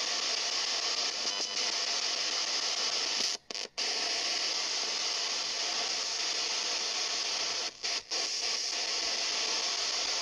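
Steady radio-like static hiss, cutting out abruptly for a moment twice about three and a half seconds in and twice again about eight seconds in.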